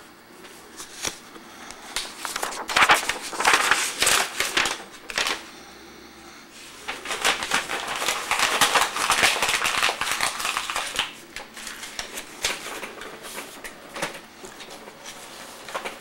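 Sheets of paper being handled and leafed through: irregular rustling and crackling, busiest through the middle stretch.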